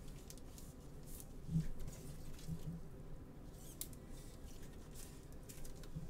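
Faint clicks and short rustles of trading cards, foil packs and a clear plastic card holder being handled with nitrile-gloved hands.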